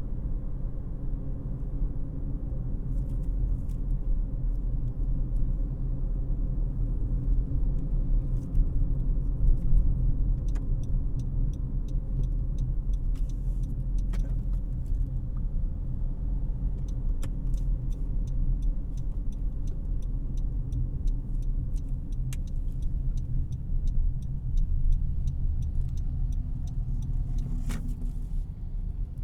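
Interior cabin noise of a 2018 Honda CR-V LX on the move: a steady low rumble of tyres and engine, heard from the driver's seat. Quick, light ticks come and go through the middle stretch.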